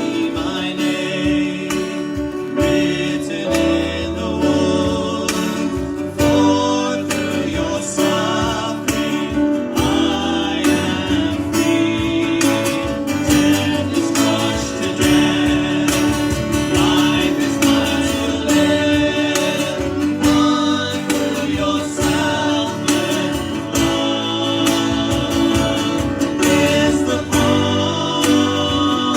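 Worship song: singing over a strummed acoustic guitar.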